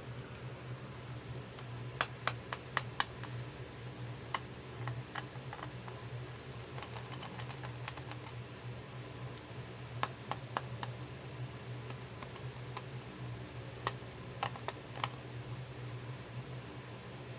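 Hard plastic clicking and tapping as fingers handle a heart-shaped toy makeup palette, in quick runs of a few clicks every few seconds.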